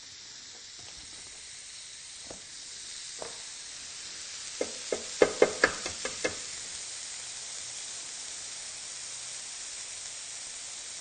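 Steak and bacon sizzling on the hot plates of a Sage Smart Grill Pro electric contact grill, opened flat into barbecue mode: a steady frying hiss. About halfway through comes a quick run of sharp taps.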